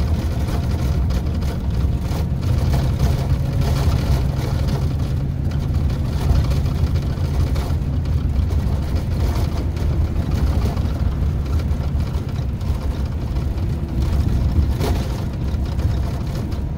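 Scania K400 coach's rear-mounted diesel engine running steadily with a deep, even hum.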